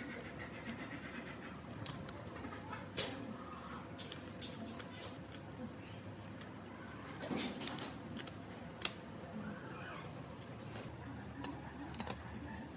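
Light workshop handling noise: scattered clicks and knocks over a steady hiss, with a few sharper taps and two short runs of high, falling chirps.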